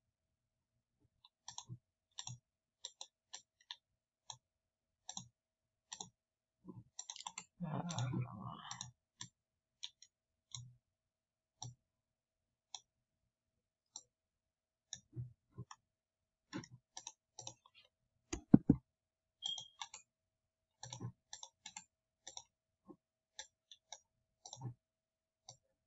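Computer mouse clicking at irregular intervals, single clicks spaced a fraction of a second to a couple of seconds apart. There is a brief rustling noise about eight seconds in, and two sharp, louder knocks in quick succession about two-thirds of the way through.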